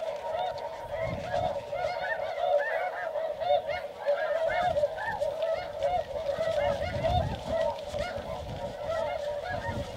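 A flock of snow geese calling: many short, overlapping honks, several a second, with no break.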